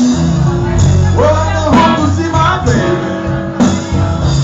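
Live rock band playing: an electric guitar lead with sliding, bent notes over bass and drums, with sharp drum hits throughout.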